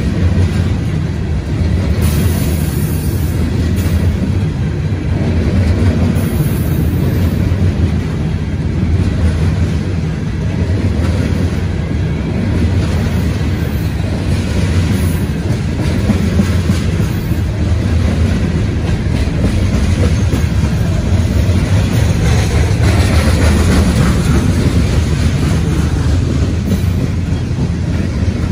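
Coal hopper cars of a freight train rolling past close by, their steel wheels on the rails making a steady heavy rumble with clattering over the rail joints.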